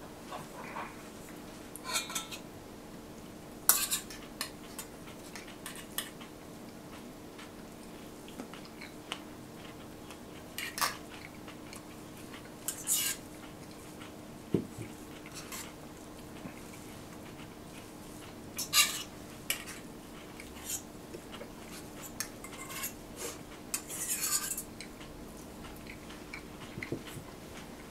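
Serving spoon and utensils clinking and scraping against stainless steel bowls as salad is dished out, in scattered sharp clinks, over a faint steady hum.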